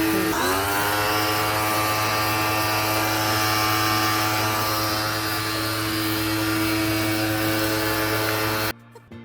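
Bennet Read electric pressure washer running, its motor whine dipping sharply in pitch about half a second in and then settling to a steady note, over a steady hiss. It cuts off abruptly near the end, giving way to quiet music.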